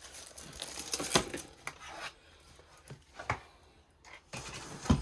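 Small hard objects being handled, with sharp clicks and clatters about a second in, a little past three seconds and near the end, over light rustling.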